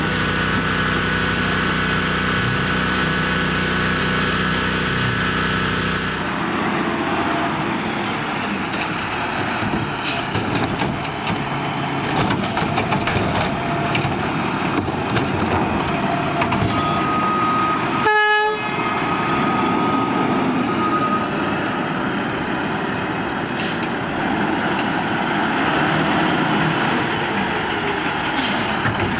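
Garbage truck engine running: a steady idle for the first six seconds, then an abrupt change to a noisier stretch of truck engine and mechanical working noise, with a short pitched blip about eighteen seconds in.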